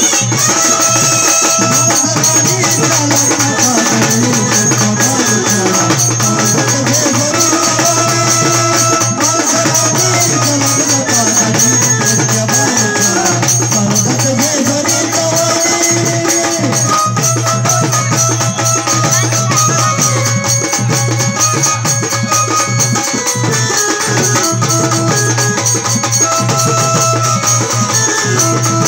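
Waghya-Murali folk music played live: a sliding, bending melody over a steady, dense rhythm of jingling percussion.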